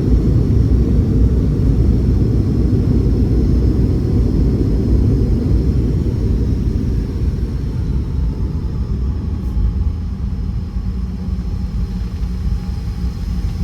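Cabin noise of a Boeing 717 rolling on the runway just after landing: a loud low rumble from the wheels and airframe that slowly dies down as the jet decelerates, with a faint engine whine above it.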